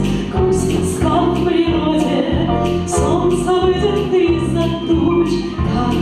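A song sung by a woman into a microphone over a backing track with a steady bass beat.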